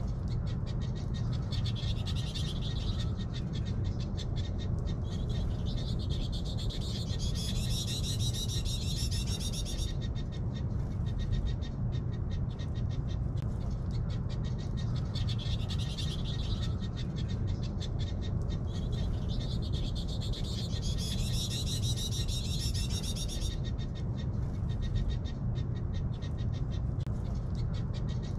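A chorus of small animal calls, a fast pulsing chatter that swells into louder warbling waves every few seconds, over a steady low rumble.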